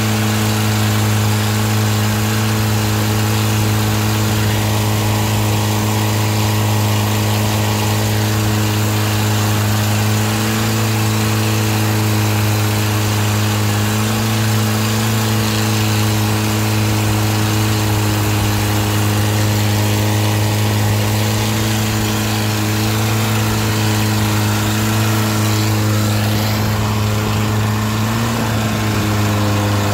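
Open automotive engine driving a wooden river boat, running loud and steady at cruising speed through a short upright exhaust pipe, with its pitch dipping briefly and recovering near the end. The rush of water and spray along the hull sits under it.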